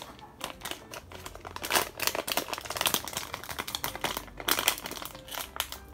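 Plastic wrapper of a Magnum Classic ice cream bar crinkling as hands pick it up and handle it, in a fast, irregular crackle.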